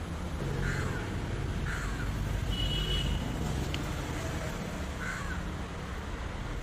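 Three short bird calls, two near the start and one later, over a steady low background rumble.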